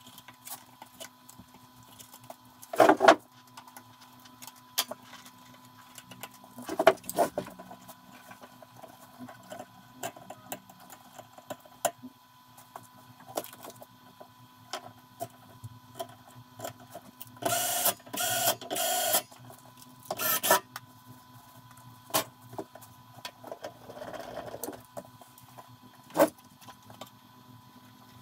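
Wire connectors and cables being handled and plugged onto the new board inside an open welding inverter: scattered light clicks and taps, with a few louder knocks about three and seven seconds in and a run of scraping and rustling about two-thirds of the way through. A faint steady tone hums in the background.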